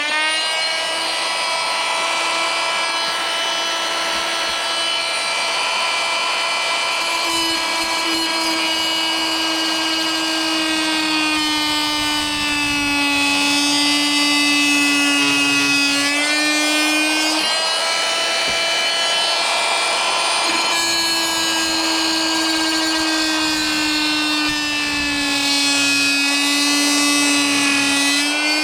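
Oscillating multi-tool with a Ridgid wood-and-metal blade cutting into onyx stone: a steady, high buzz whose pitch sags slightly at times as the blade bites into the stone.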